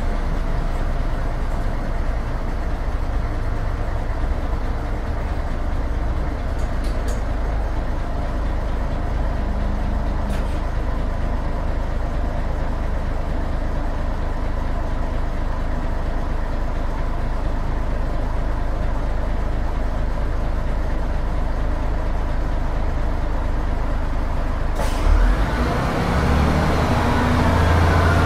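Büssing DE 74 double-decker bus's underfloor Büssing U10 diesel engine running with a steady hum. About 25 seconds in there is a sharp click, then the engine note grows louder and a rising whine climbs near the end as the bus comes under load.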